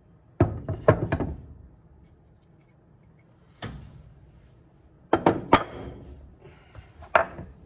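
Kia/Hyundai 2.4 balance shaft and oil pump housing, cast aluminium with steel shafts and gears, knocking and clinking as it is handled and set down on a wooden workbench. The sharp knocks come in four short groups: a cluster about half a second in, a single knock, another cluster around five seconds, then a last knock.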